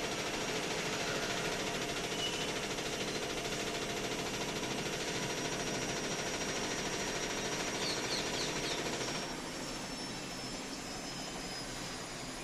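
IFB washing machine running: a steady motor whir with a hum of several steady tones. About nine seconds in the motor note cuts out and a quieter steady whoosh carries on.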